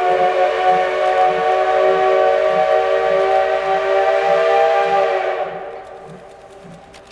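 Steam whistle of the C58 239 steam locomotive sounding one long, steady blast of several tones at once, fading away about five and a half seconds in. Under it runs the locomotive's soft exhaust beat, about two a second.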